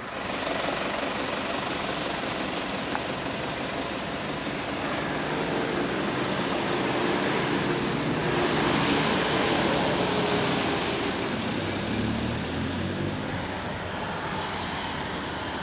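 A steady engine drone passing by, growing to its loudest about eight to eleven seconds in and then easing off.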